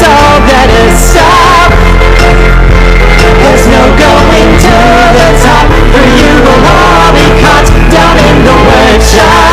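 Rock music played at a boosted, near-clipping volume, with a wavering lead melody over sustained low notes and no sung words.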